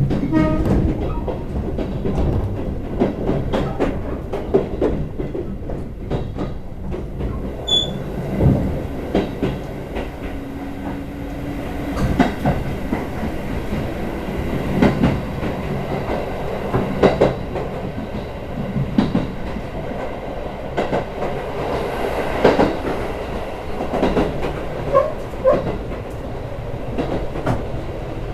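Chichibu Railway express train running at speed as heard inside the passenger car: a steady rumble with irregular clicks and knocks of the wheels passing over rail joints.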